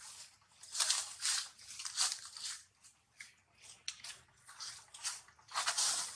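Irregular crunching, chewing noises from a monkey, short and close, a few every second, with no calls or crying.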